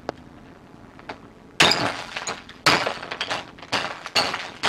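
A television's glass screen smashing: a loud crash about one and a half seconds in with glass crackling and clinking after it, a second crash a second later, then a run of smaller crashes and clinks of breaking and falling glass.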